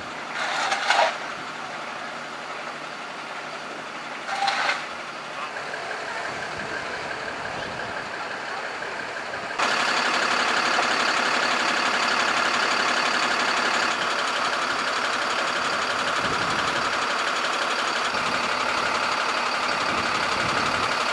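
A machine's engine running steadily, with two short louder noises in the first five seconds; about ten seconds in the engine sound becomes much louder and stays steady.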